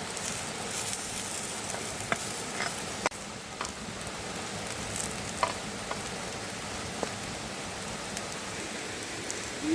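Food sizzling on a hot flat stone over a campfire, with scattered small pops and crackles. The sound dips sharply for a moment about three seconds in.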